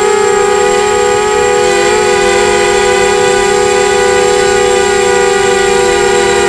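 Quadcopter's electric motors and propellers whining steadily in flight, heard close up from the craft itself: several close tones that waver a little as the throttle shifts.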